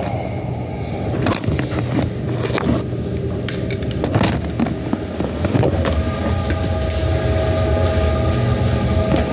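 Steady road and engine rumble of a car being driven, heard from inside the cabin, with a few small knocks and clicks.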